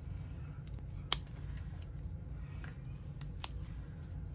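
Scissors snipping notches into a sewn fabric seam allowance: about five short, sharp snips spread out over a steady low hum.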